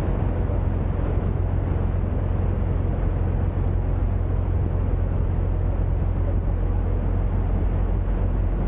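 A boat's engine running steadily while the boat is under way, heard as a constant low rumble.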